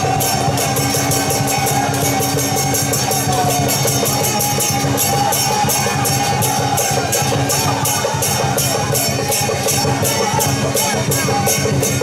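Taiwanese temple procession percussion music: drums and cymbals struck in a fast, steady beat, with a wavering melody line over it.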